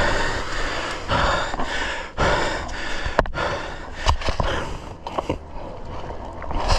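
A person breathing hard and panting close to the microphone, with heavy breaths about once a second: an exhausted rider catching his breath.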